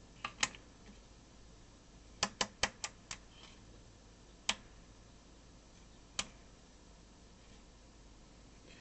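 Rotary selector switches of a resistance decade box clicking through their detent positions while the series resistance is fine-tuned: two clicks, a quick run of five, then two single clicks.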